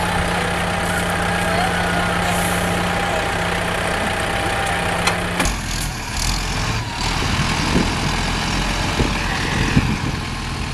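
Heavy truck's diesel engine running steadily at low revs. About five seconds in, the sound cuts abruptly to a deeper diesel rumble with a few sharp knocks.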